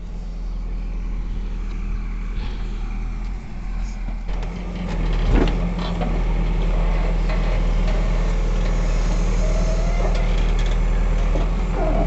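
Backhoe loader's diesel engine running steadily under load as its hydraulic arm digs out an old wooden bridge pile, getting louder about four to five seconds in. A single sharp metallic knock comes a little after five seconds.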